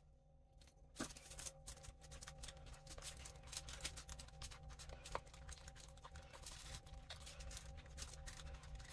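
Plaster and water being stirred in a soft plastic bowl: a faint, dense run of small scraping and clicking sounds that starts about a second in and keeps on steadily.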